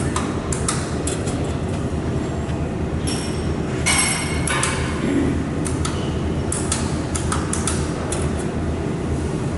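Steady low machine hum from a laser welding machine, with scattered light clicks and knocks as a thin metal sheet is handled on its worktable and its panel buttons are pressed. A brief, brighter hissy burst with a thin tone sounds about four seconds in.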